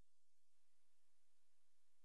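Near silence after the music fades out, with only faint hiss.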